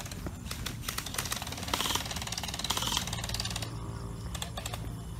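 Gel blaster firing on full auto: a fast, dense run of mechanical clicks from its gearbox, heaviest about two to three seconds in, stopping about three and a half seconds in.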